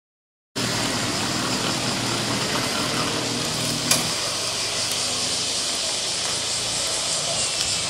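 Steady street noise with a motor vehicle engine running, and a single sharp click about four seconds in.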